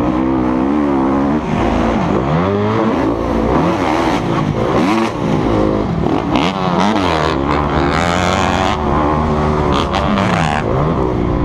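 Motocross bike engine heard from on board, its pitch climbing and falling over and over as the rider works the throttle and shifts gears around the track.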